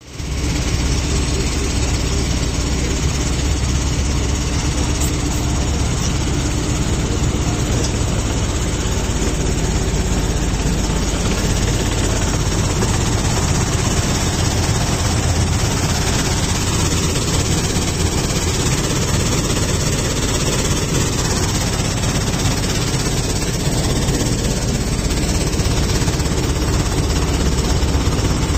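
A 150 tph dual-wheel sand washing machine running: a steady, loud machinery drone with a deep rumble.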